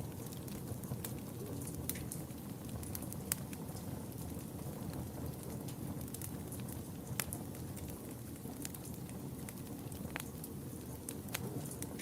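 Fire burning in a fireplace: a steady low rumble of flames with irregular crackles and sharp pops scattered throughout.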